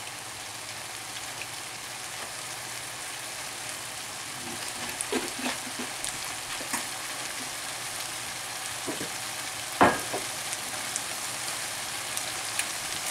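Linguine with clams in a butter and white-wine sauce sizzling steadily in a frying pan. A few light clicks come in the middle, and one sharper knock follows about ten seconds in.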